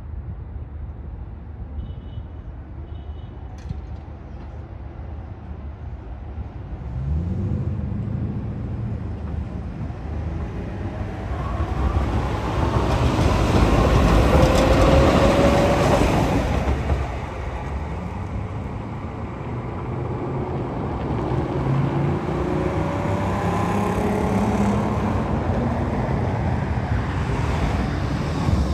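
Electric tram starting off and accelerating, its traction motors whining and climbing in pitch over a rumble of wheels on rails. The sound grows loudest midway, drops off suddenly, then a second rising whine follows. Two short beeps sound near the start.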